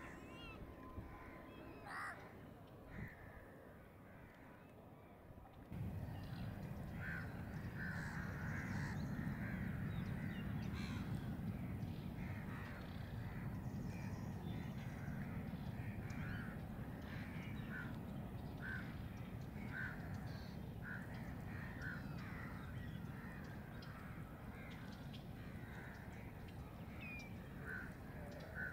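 Crows cawing in short calls, about one a second, over a steady low rumble that comes in abruptly about six seconds in.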